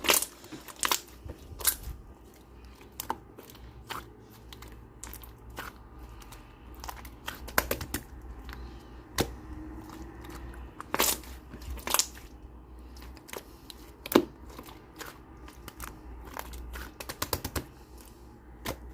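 Slime being pressed, poked and stretched by hand, giving irregular sharp clicks, pops and crackles.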